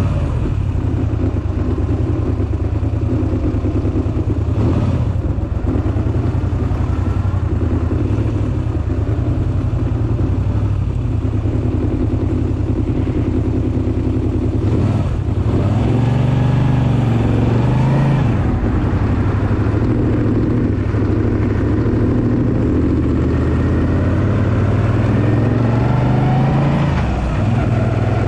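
Moto Guzzi V7 III Racer's air-cooled transverse V-twin running under load on a climb. The revs rise twice, with a brief dip about halfway through and another near the end.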